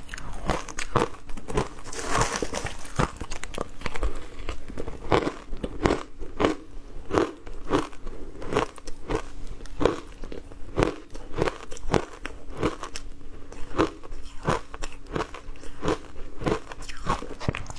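Close-miked chewing of crushed shaved ice: a continuous run of crisp, irregular crunches, about two or three a second.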